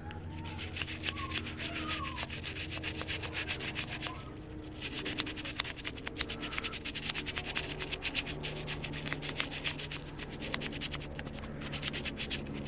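Toothbrush scrubbing a motorcycle's paraffin-wet rear sprocket and hub: rapid back-and-forth bristle strokes on metal, with a short pause about four seconds in.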